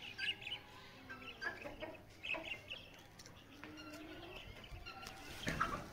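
Chickens clucking, in short calls scattered through, with a brief louder scuffing noise near the end.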